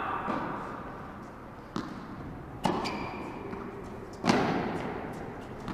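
Tennis ball struck by rackets and bouncing on an indoor hard court during a rally: a few sharp pops that echo around the hall, the loudest about four seconds in.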